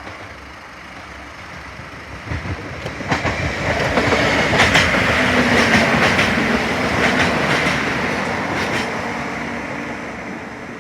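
Translink NI Railways Class 4000 diesel multiple unit passing over a level crossing, its sound building over the first few seconds, peaking in the middle and fading away. Sharp clacks of the wheels over the track come through as it passes.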